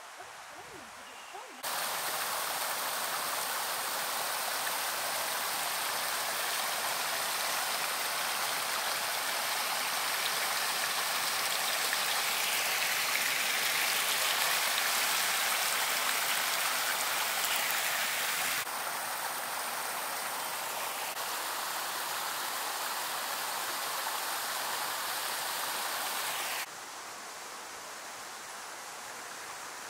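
River water rushing and splashing over rocks in a steady rush. It comes in abruptly about two seconds in, drops a little around nineteen seconds and drops again, quieter, near twenty-seven seconds.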